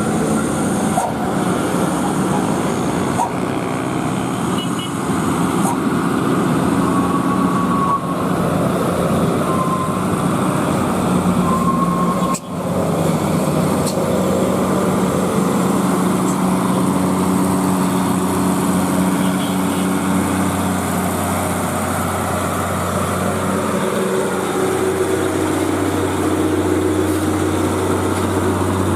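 Heavy truck's diesel engine running steadily, with a short drop in sound about halfway through.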